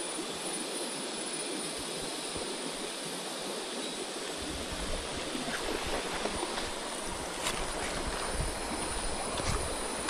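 Flowing river water: a steady rushing hiss of a stream, with a few sharp clicks in the second half.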